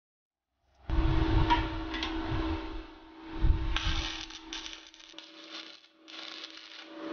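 MIG welder arc crackling and sizzling as beads are laid on a steel pit bike frame, starting about a second in over a steady hum, with a short break about six seconds in before a second run. Some low thuds come in the first few seconds.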